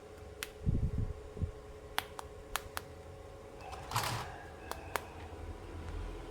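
Plastic toy pieces being handled: a series of sharp single clicks and a few dull knocks, with a short rustle about four seconds in.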